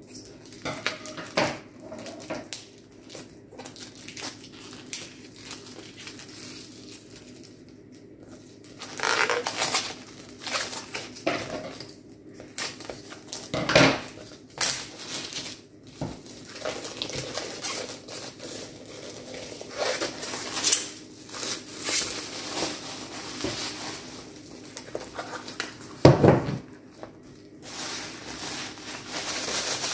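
Plastic shrink-wrap crinkling and crackling as it is pulled off a 3D puzzle's printed foam-board parts sheet, with uneven rustling bursts of handling. Two sharper knocks of the board, one about halfway and one near the end.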